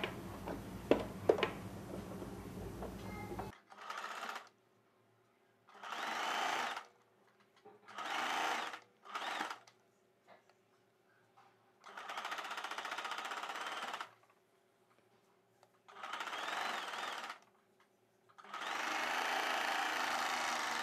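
Electric sewing machine stitching a sequinned net piece and its satin lining together, in about seven short runs of one to three seconds with pauses between. The first few seconds hold fabric-handling noise with a couple of sharp clicks.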